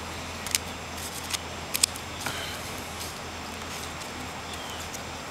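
Yu-Gi-Oh! trading cards being handled and set down on a wooden table: a handful of light, sharp clicks and taps in the first two seconds, over a steady background hiss.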